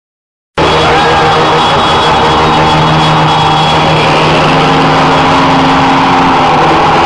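Car and motorcycle engines running close by in a slow street procession, a loud, dense and steady mix that begins about half a second in after a brief gap of silence.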